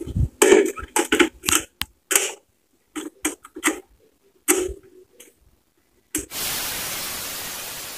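Plastic clicks and clacks of a cassette boombox being handled, its keys pressed several times. About six seconds in, one last click is followed by a loud, steady hiss that slowly fades.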